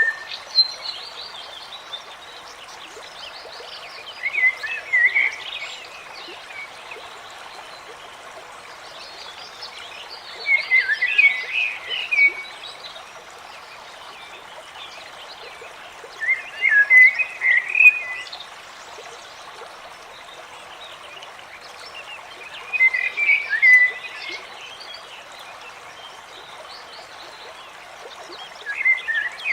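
Nature sound-effect track: a stream running steadily, with bursts of chirping calls that return about every six seconds.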